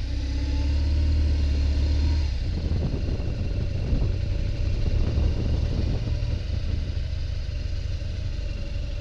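Motorcycle engine running at low town speed, heard from on board the bike as a steady low rumble. It turns rougher after about two and a half seconds, as another motorcycle draws alongside.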